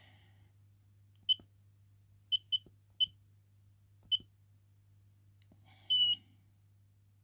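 Handheld digital battery tester beeping: five short, irregularly spaced high beeps as it is worked through its measurement, then one longer beep about six seconds in as the test finishes. A faint steady low hum runs underneath.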